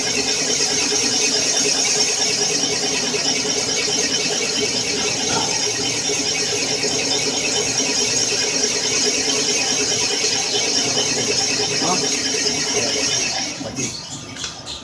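Cylinder boring bar cutting out an engine block's cylinder bore: a steady, high-pitched squeal from the cutter over the running machine. The sound drops away about a second before the end.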